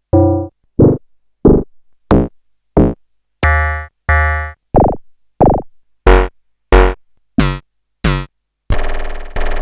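Erica Synths Perkons Voice percussion synth module sounding single hits at a steady pace, about three every two seconds, each with a different timbre as the factory presets are stepped through: pitched, ringing hits, deeper kick-like thuds and brighter ones. Near the end comes a longer, noisier sustained sound.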